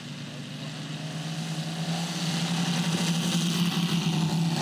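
The three Moki five-cylinder four-stroke radial engines of a giant radio-controlled Junkers Ju 52 model running at takeoff power. Their steady drone grows louder as the model rolls down the grass strip towards liftoff.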